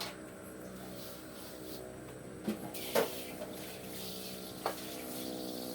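Kitchen sounds: a steady hum with a few light knocks and clinks of cookware, three of them in the second half.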